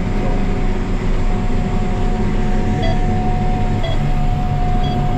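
Tractor running steadily under load in the field, heard from inside the cab: a dense low drone with a constant whine over it. Three short electronic beeps come about a second apart in the second half.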